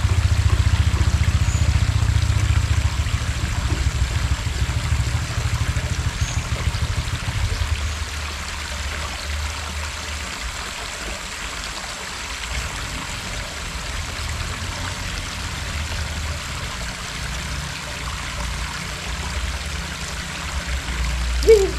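Steady rush of water flowing over a small weir into the shallow river, with a heavier low rumble for the first several seconds.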